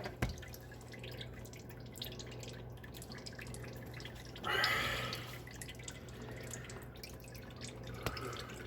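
Engine oil dripping from the opened oil filter housing of a 2024 Toyota Tundra into a drain pan, a steady run of small drips, with a brief louder rush of noise about four and a half seconds in. A low steady hum lies under it.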